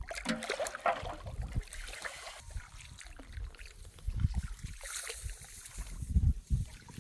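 Water splashing and trickling, with sloshing, amid repeated bursts of low rumble.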